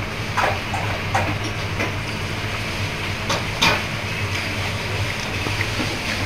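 Steady low hum and hiss of a small restaurant's dining room, broken by about five sharp clinks of tableware, the loudest about three and a half seconds in.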